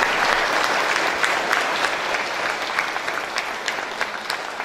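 A large congregation applauding: many hands clapping in a dense wash that slowly thins and quietens, with single claps standing out near the end.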